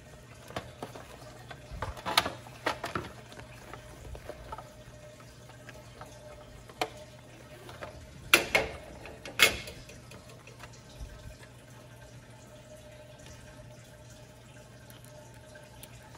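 Handling noises of a Billy Bass being put back together: scattered clicks and knocks as the plastic mechanism and rubbery fish skin are pressed into place and a screwdriver works a screw in. The loudest knocks come in two clusters, about two seconds in and again about eight to nine seconds in, over a low steady hum.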